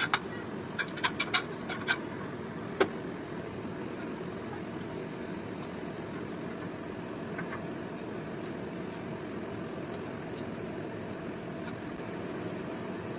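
A metal spoon clinking against a non-stick frying pan, about seven quick taps in the first three seconds, as rice is stirred. After that, only a steady low background hum.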